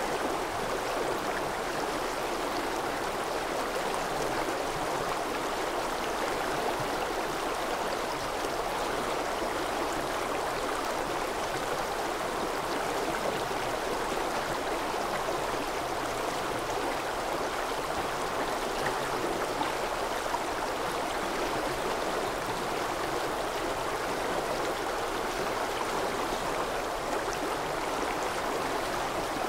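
Stream water rushing over rocks in a steady, even wash of sound with no changes.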